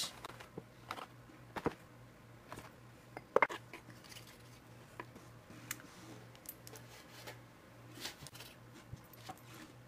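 Scattered soft taps and knocks of a glass tumbler pressing out cookie circles in rolled dough on a wooden board, with the loudest knock about three and a half seconds in.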